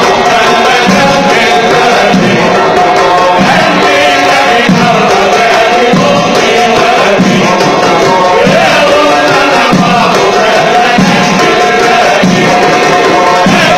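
Male voices chanting a Tunisian sulamiya Sufi devotional song, accompanied by hand-struck frame drums with jingles.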